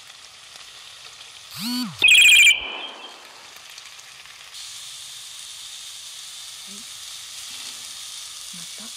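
Food sizzling in a frying pan, broken about one and a half seconds in by a sudden, very loud, harsh electronic-sounding screech lasting about a second, far louder than the frying. From about four and a half seconds, shimeji mushrooms and green peppers sizzle in oil, a little louder.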